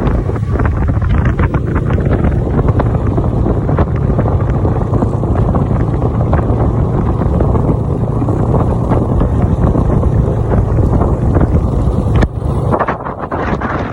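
Snowmobile engine running steadily under way, with wind rushing over the microphone; the sound drops away abruptly about twelve seconds in.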